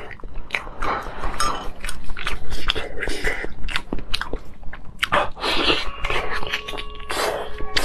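Close-miked biting and wet chewing of a soft sheep brain wrapped in sheep tripe, a quick, irregular string of mouth clicks and smacks.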